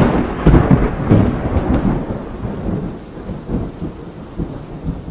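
Thunder rumbling over steady rain, loudest in the first two seconds and slowly dying away.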